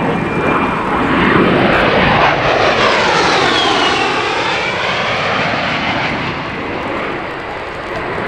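Twin General Electric TF34 turbofan engines of a US Air Force A-10 Thunderbolt II on a low pass: a loud rushing jet noise with a whine that sweeps down and back up as the aircraft goes by, about three to four seconds in, easing off a little as it banks away.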